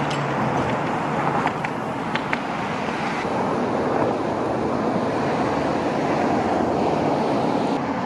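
Steady road traffic noise from passing cars, with a few light clicks about one and a half to two and a half seconds in.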